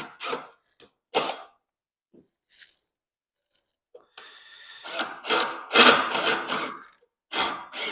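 Cordless drill driving a screw into wood, running for about three seconds from about four seconds in. Before and after it come short scraping strokes of work on the wood.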